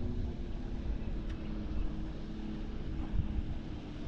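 Outboard motor running steadily as the boat cruises, an even hum over a low rumble.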